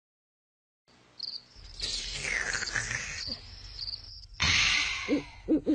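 Crickets chirping in high, repeated chirps over a soft hiss of background noise. A few short low sounds come near the end.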